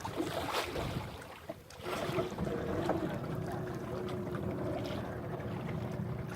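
Boat engine running steadily, a constant hum under wash and wind noise, briefly dipping about a second and a half in.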